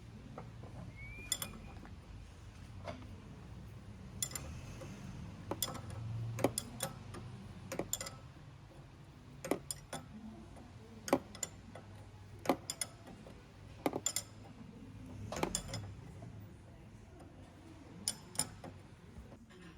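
Irregular sharp metallic clicks and clinks, hand tools and metal parts being handled during strut reassembly, over a low steady hum. A brief squeak about a second in.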